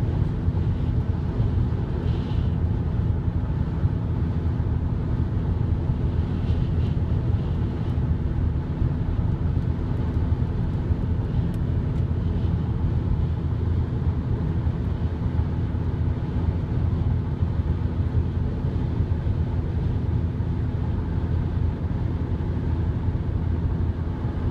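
Steady road and engine rumble heard inside a car's cabin at motorway speed.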